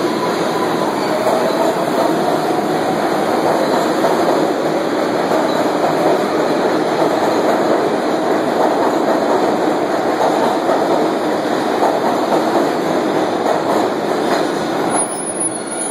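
Kawasaki R142A subway train running past the platform: a loud, steady rumble and clatter of wheels on the rails, with a faint motor whine early on. The sound eases a little near the end as the last cars clear.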